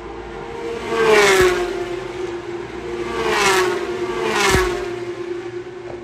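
Race cars passing at speed, three in quick succession, each engine note high-pitched as it approaches and dropping in pitch as it goes by. The loudest pass comes about a second in.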